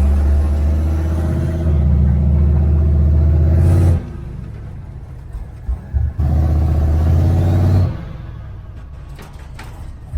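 Turbocharged LS V8 engine of a 1967 Chevy C50 truck running on a test drive with a deep, steady drone. The drone cuts off suddenly about four seconds in, returns at about six seconds and cuts off again near eight seconds.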